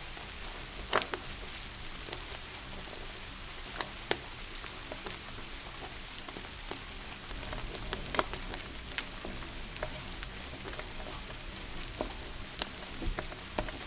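Steady rain hiss with a fireplace fire crackling over it, sharp pops scattered every second or few.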